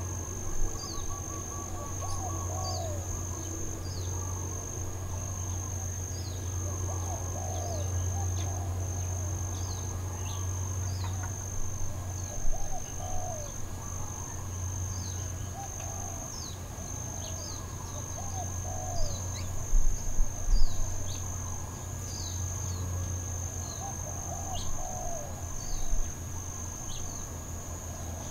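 Steady high-pitched insect chorus of trilling crickets, with repeated short downward-sliding bird chirps over it and a steady low hum underneath. A few brief louder sounds come about halfway through and again about two-thirds of the way in.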